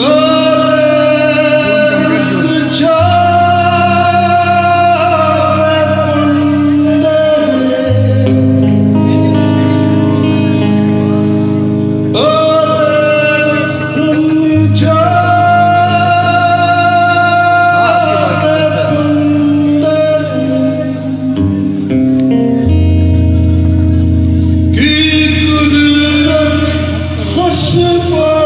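Music with singing, guitar and a steady bass line.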